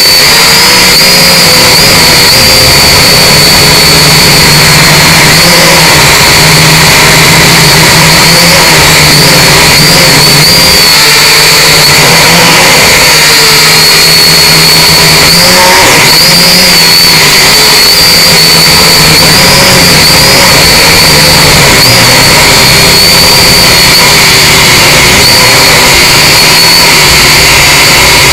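Syma X5C quadcopter's four small brushed motors and propellers whining steadily in flight, loud and close as picked up by its own onboard camera; the high pitch wavers slightly up and down.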